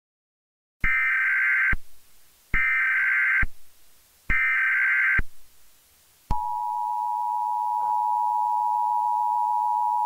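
Emergency Alert System tones: three short buzzing bursts of SAME header data, then the steady two-tone EAS attention signal starting about six seconds in.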